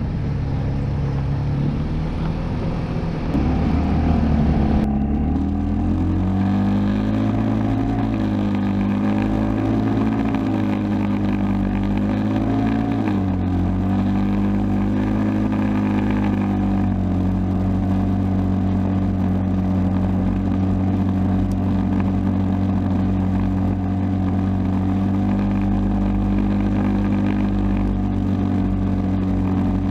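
Side-by-side off-road vehicle's engine running as it is driven along the trail. Its pitch rises and falls with the throttle for several seconds, then holds steady for the second half.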